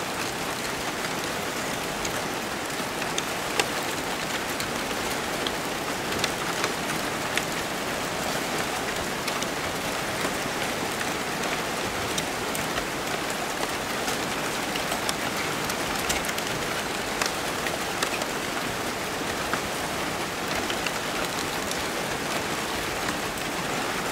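Crumpled brown packing paper kept in motion by 43 prepared DC motors, making a dense, steady crackling rustle with many small crinkles and a few louder ones scattered throughout.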